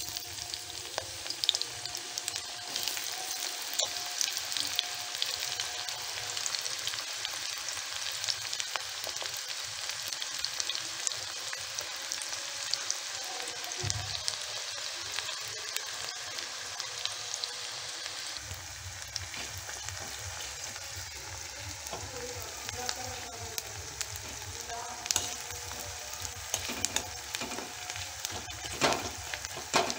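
Chopped red onion sizzling and crackling as it fries in hot mustard oil and refined oil in an aluminium kadai. In the later part a metal spatula scrapes and stirs the onion around the pan.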